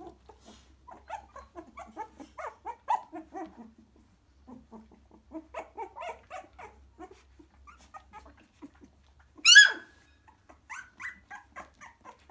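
Three-week-old cockapoo puppies squeaking and whimpering in quick runs of short cries, with one much louder, high-pitched yelp about three-quarters of the way through.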